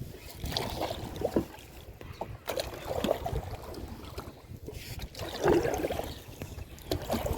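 Water sloshing and splashing in irregular bursts as a spearfisherman moves through the water, with a louder splash about five and a half seconds in.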